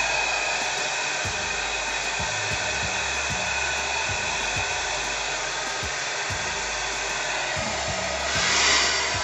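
Handheld hair dryer running steadily with an even, airy rush, drying freshly sprayed lace glue on a wig. It swells louder for about a second near the end.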